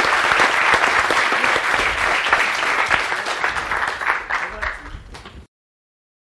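Audience applauding, dense clapping that fades over its last second or so before the recording cuts off abruptly about five and a half seconds in.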